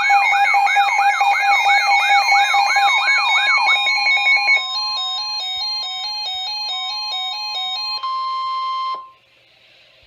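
Several NOAA weather radios sounding their alert alarms together, signalling an incoming blizzard warning broadcast. A rapidly repeating falling siren-like sweep with steady beeps gives way about four seconds in to alternating two-pitch beeps, all over the steady 1050 Hz weather-radio warning tone, which cuts off about nine seconds in and leaves faint hiss.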